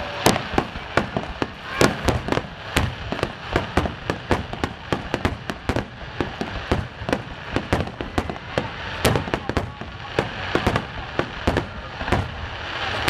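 Aerial fireworks bursting in rapid, irregular succession: several sharp bangs a second over a continuous crackle.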